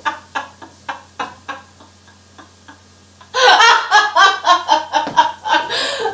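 A woman laughing: short, quieter laughs a few times a second, then from about three seconds in a burst of loud laughter.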